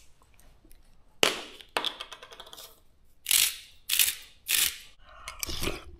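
Two sharp clicks a little over a second in, then a salt shaker shaken three times in quick succession, each shake a short, hissing rattle.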